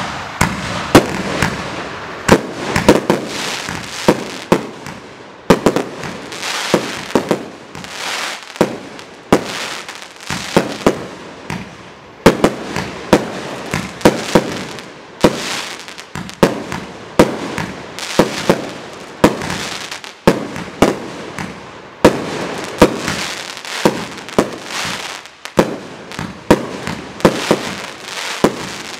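A 30 mm, 120-shot fireworks cake (Chain reaction FC30120-1) firing its shots in a steady sequence. Sharp reports come about once a second, over a continuous dense crackle of bursting effects.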